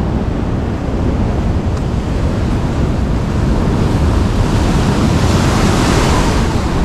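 Ocean swell surging and washing over a coastal rock ledge, with wind buffeting the microphone. A wave comes in louder and hissier from about four seconds in, easing near the end.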